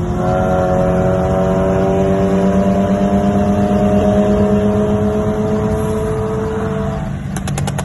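Stage-2 tuned VW Golf Mk7 GTI's turbocharged four-cylinder accelerating hard at motorway speed, its engine note rising steadily through one long pull. Near the end the note drops away and the tuned exhaust crackles with a quick run of pops, the overrun pops-and-bangs tune.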